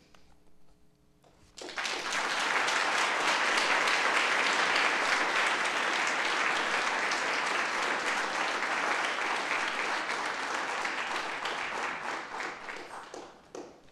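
Audience applauding: after a short quiet pause it starts suddenly about a second and a half in, holds steady, then dies away near the end.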